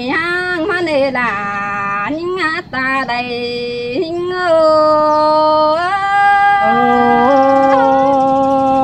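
A voice singing a Thái folk love song: quick, bending, ornamented phrases in the first half, then long steady held notes that step in pitch in the second half.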